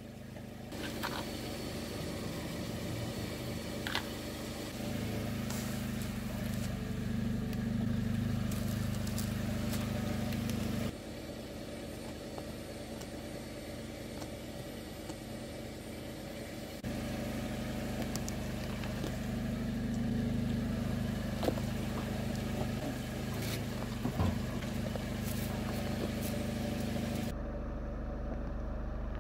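Car engine idling steadily, with a few scattered small crackles and ticks.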